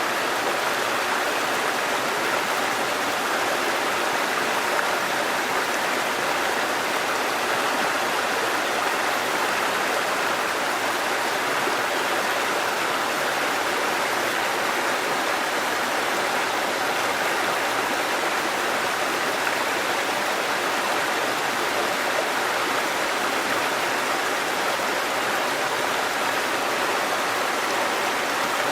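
Flowing water rushing steadily, like a stream or small waterfall, with an even, unchanging sound.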